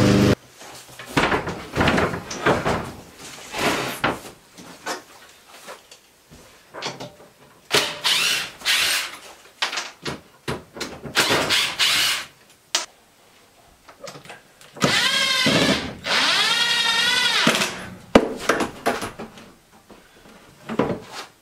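Cordless drill driving screws into the wall, with short trigger runs and two longer runs near the end, its whine wavering in pitch under load. Between them come knocks and scrapes of a wooden wall cabinet being lifted and set in place.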